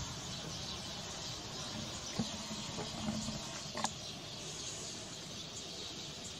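Outdoor rural ambience: a steady hiss, with a few short clicks or chirps about two and about four seconds in.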